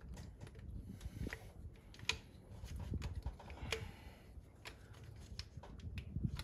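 Light, irregular clicks and taps of hands handling a plastic wiring-harness plug and nearby engine parts, with a couple of sharper knocks.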